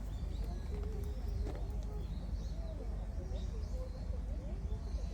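Indistinct chatter of a crowd of many people over a steady low rumble, with a single sharp click about a second and a half in.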